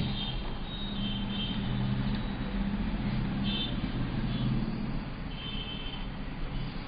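Steady low background hum, with a few faint, short high beeps from a digital multimeter's continuity buzzer as the probes are set on a phone circuit board; a beep means there is continuity between the battery connector and the resistor.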